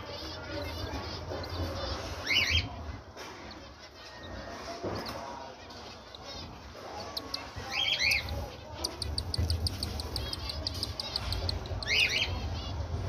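Cockatiel chicks begging while an adult cockatiel feeds them. Short high rising cries come a few seconds apart, about three times, with a fast run of rapid chirps in the middle.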